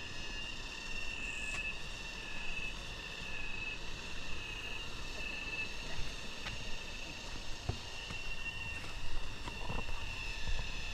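Cicadas singing in a steady, high-pitched chorus that swells and eases in waves, with a few faint clicks.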